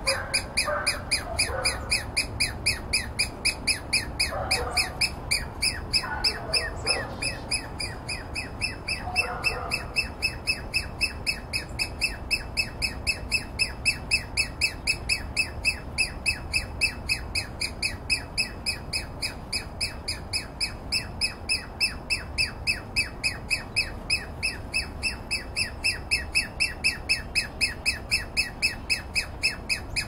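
Douglas squirrel giving its alarm call: a sharp, squawking call repeated steadily about three times a second, without a break.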